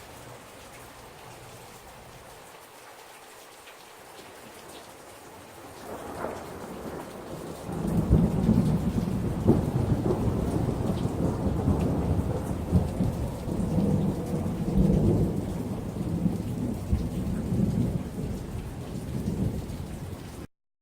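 Steady rain, then a long rolling rumble of thunder. The thunder builds about six seconds in and stays low and heavy, swelling and easing, until the sound cuts off abruptly near the end.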